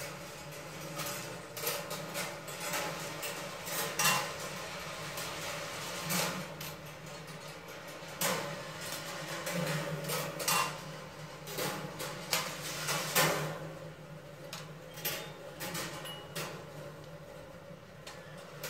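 7/8-inch glass marbles rolling along a stainless-steel wire rolling-ball sculpture, with irregular clicks and clinks as they strike the rails and each other, over a steady low hum.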